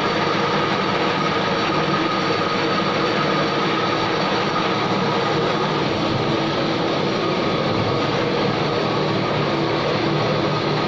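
Steady mechanical drone of dye-house machinery running, with a faint constant whine on top and no change in pace or pitch.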